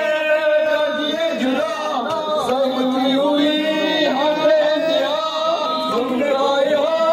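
A noha, a Shia mourning lament, sung unaccompanied by male voices into microphones, in a slow chant with long, wavering held notes.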